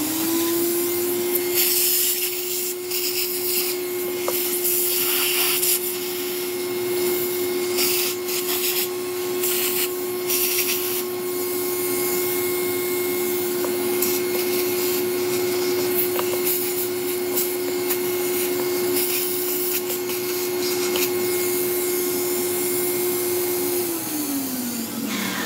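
Small handheld electric air-cleaning tool spinning up, running at a steady high speed with a loud hiss of rushing air that surges now and then, and winding down shortly before the end.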